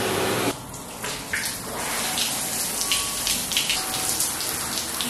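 A brief steady hiss of steam, then water jets spraying from a nozzle onto a person's body with a spattering, splashing hiss.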